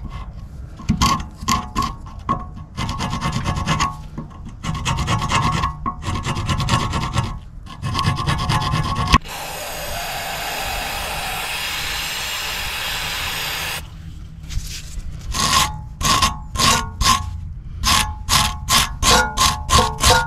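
Wire brush scrubbing the rusty steel pad slide surfaces of a brake caliper carrier clean, in uneven back-and-forth strokes. About nine seconds in, an aerosol spray hisses steadily for about four and a half seconds. The scrubbing then resumes, faster and more even, at about two to three strokes a second.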